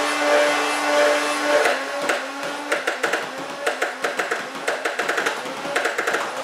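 Full-auto-modified Nerf Rival Zeus with its flywheel motors revving on a 2-cell LiPo, a steady whine, then firing foam balls in rapid bursts: dense runs of clicks as the balls feed through, the motor pitch dipping and recovering between bursts.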